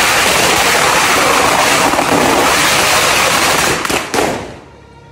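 A 2000-round Conde Sawa firecracker string going off in a loud, continuous rapid-fire crackle. A few last separate bangs come just before four seconds in, and the string then dies away.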